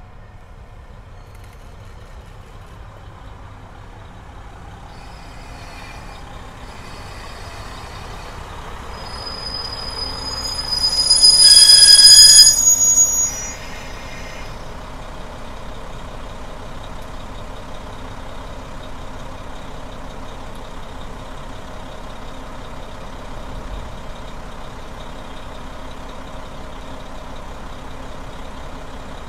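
KiHa 66 series diesel railcar pulling into a station, growing louder as it nears. It gives a loud, high brake squeal lasting a couple of seconds as it stops, about halfway through. Its diesel engines then idle steadily at the platform.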